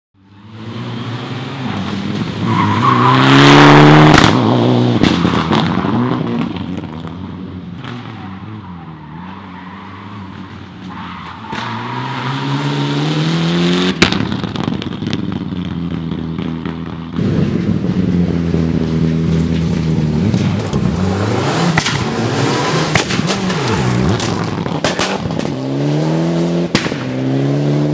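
Mitsubishi Lancer Evolution X rally car's turbocharged four-cylinder engine at full throttle: the pitch climbs and drops again and again through gear changes as it speeds past, loudest on a close pass a few seconds in. It runs over several cut-together passes.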